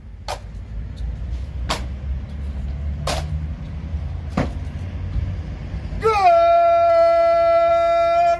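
A military bugle call: a long held note comes in about six seconds in, scooping up briefly to pitch before holding steady. Before it, four sharp clicks a second and a half apart over a low rumble.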